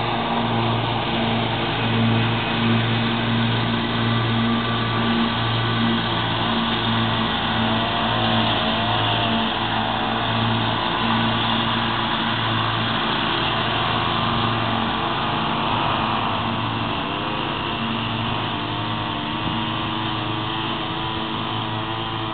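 Commercial lawn mower engines running steadily. The closest one gives a pulsing low hum that fades about two-thirds of the way through, and a fainter engine wavers in pitch in between.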